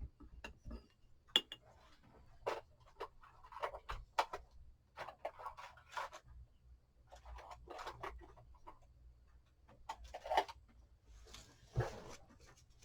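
Scattered light clicks and taps of a paintbrush against a small paint dish and the work surface as the brush is loaded with chalk paint, with soft brushing near the end.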